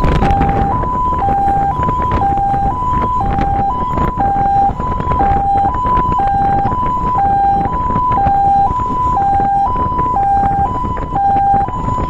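Fire truck's electronic siren sounding a hi-lo two-tone, switching between two pitches about every third of a second, over the low rumble of the moving truck.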